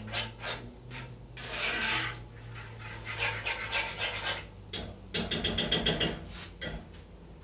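A spoon scraping round a pot as thick peanut sauce is stirred, in rasping strokes, with a quick run of fast, even strokes about five seconds in.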